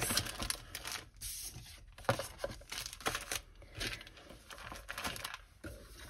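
Clear plastic bags of diamond-painting mini kits crinkling and rustling as they are handled and packed into a cardboard box, in irregular bursts of crackle.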